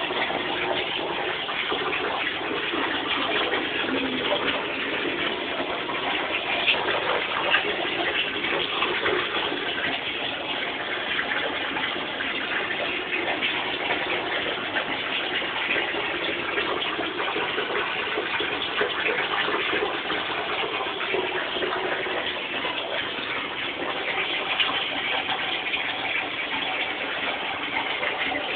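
Water running steadily from a tap into a bathtub, a constant rushing that hardly changes.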